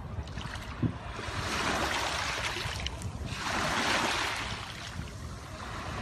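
Small sea waves washing in over a pebble shore, two washes swelling up and fading away, with a third beginning at the end. A low rumble of wind on the microphone runs underneath.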